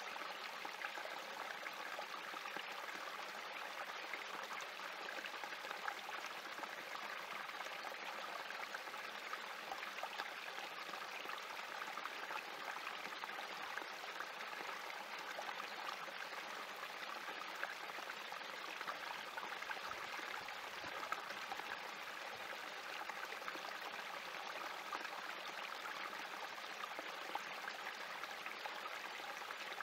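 Small spring creek running over rocks and spilling down a little cascade: a steady trickling, splashing babble.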